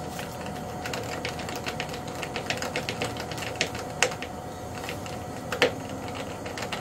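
Hand screwdriver turning a screw into a model jet's wing: a run of quick small clicks, with two sharper clicks about four and five and a half seconds in.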